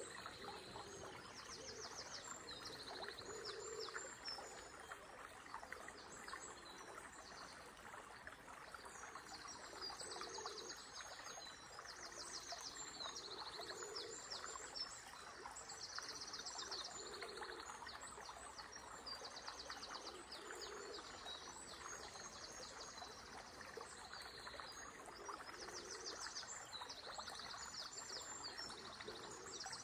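Steady rush of flowing river water, with songbirds singing high, fast trills and chirps throughout and soft low calls every few seconds in the early-morning dawn chorus.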